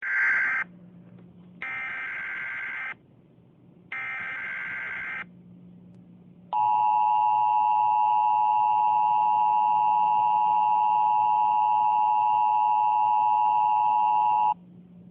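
Emergency Alert System tones: three short warbling SAME header data bursts, the first one shorter, then the steady two-tone EAS attention signal held for about eight seconds. These tones introduce an emergency alert message, here a civil emergency message. A faint low hum sits in the gaps between the bursts.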